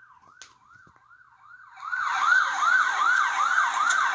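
Emergency vehicle siren sweeping up and down in pitch about three times a second, faint at first and much louder from about two seconds in.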